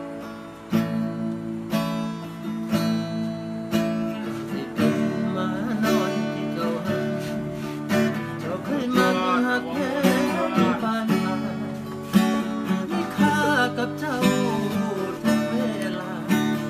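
Acoustic guitar strummed in a steady rhythm as a song's intro. About halfway in, a man's singing voice comes in over the guitar.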